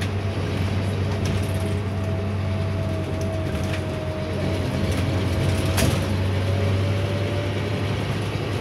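Scania OmniLink city bus heard from inside the passenger cabin: the diesel engine's steady low drone, with a faint thin whine over it. A single sharp click sounds about six seconds in.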